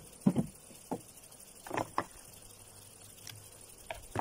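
Wooden hive frames and box knocking and scraping as a frame is worked loose and lifted out by a gloved hand: several short knocks and creaks.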